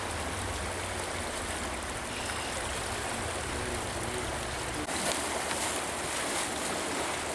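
Steady rushing of a flowing trout stream, an even wash of water noise.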